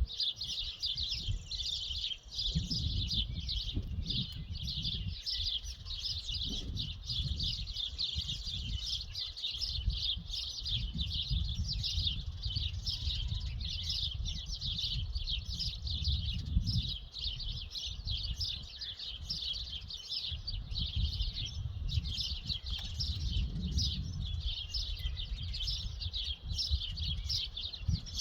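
Dense chorus of many birds chirping rapidly and without a break, over a low rumble that swells and fades.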